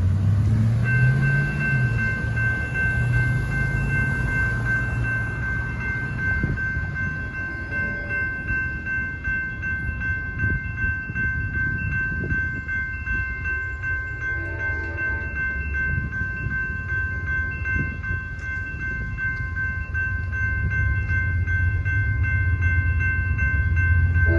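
Electronic railroad crossing bells start ringing about a second in and keep ringing steadily as the crossing activates and the gates lower. At the start a passing pickup truck's engine rises in pitch, and near the end a low rumble builds.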